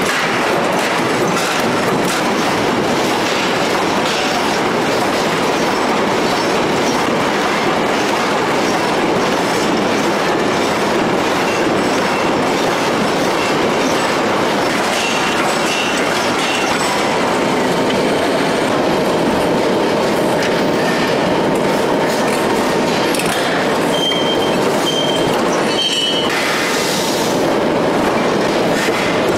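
Steady, dense industrial din of a large hydraulic forging press working red-hot steel, with a few short high squeals in the second half.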